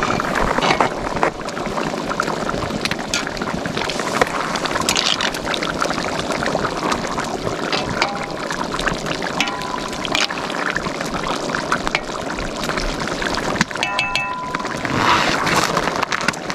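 Plov simmering in a cauldron over a wood fire: a steady bubbling hiss with scattered small clicks and pops.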